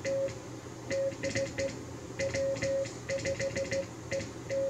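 Morse code hand-sent on a paddle: the transceiver's CW sidetone beeping in short and long elements (dits and dahs), one steady mid-pitched tone, in uneven groups with short gaps. Sharp clicks come at the start and end of each element.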